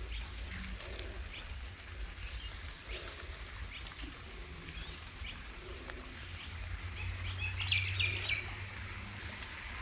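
Birds chirping in short, scattered calls, with a louder cluster about eight seconds in, over a steady hiss of rain and a low rumble.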